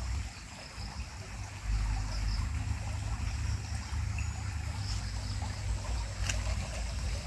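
Shallow rocky stream trickling steadily, under a low rumble on the microphone, with one sharp click about six seconds in.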